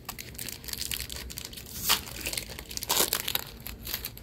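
Crinkling and crackling of a foil Magic: The Gathering booster-pack wrapper being handled and opened, a dense run of crackles with two sharper, louder ones about two and three seconds in.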